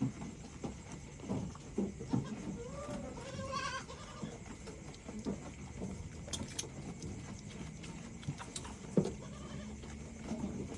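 A goat bleating once, a wavering call about three seconds in, with small knocks and shuffling around it.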